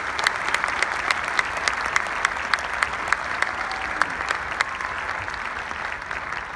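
Large audience applauding: many hands clapping together at a steady level, beginning to die away near the end.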